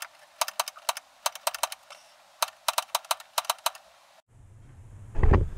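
Piezo gas igniter of an Electrolux 3-way camper fridge clicking rapidly, several sharp clicks a second, as the fridge's gas burner is lit. The clicking stops about four seconds in, and a low rumble and a bump of handling follow.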